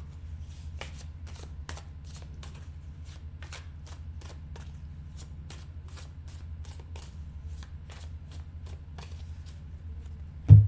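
A tarot deck being shuffled by hand, the cards clicking about three or four times a second over a steady low hum, with one loud thump just before the end.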